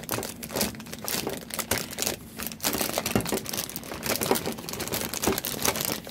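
Clear plastic packaging bag crinkling and crumpling in the hands, irregular crackles as it is squeezed and worked at to get it open.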